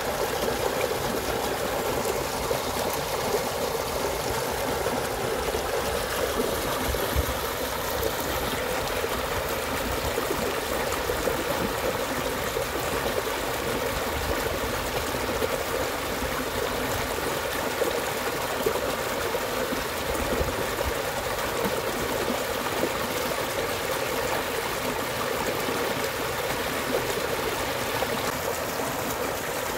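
Small muddy stream rushing and splashing down a shallow eroded gully, a steady rush of water.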